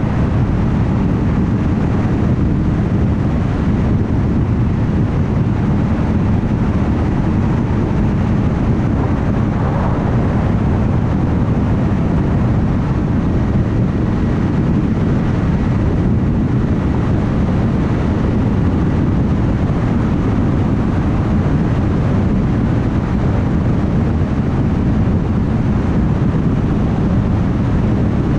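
Steady road noise of a car cruising at highway speed: an even, low rumble of tyres on the road with wind noise.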